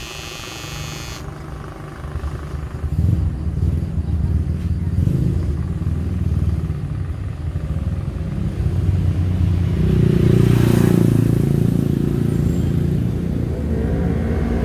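Gamma Uno electric shaver running: a high buzz for about a second, then a low, rumbling hum that grows louder about ten seconds in.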